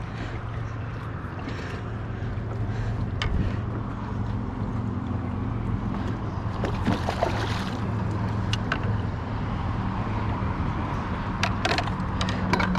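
A boat motor runs steadily with a low hum, over a wash of wind and water noise. Scattered sharp clicks and knocks come from handling gear on board, with a brief hiss about seven seconds in.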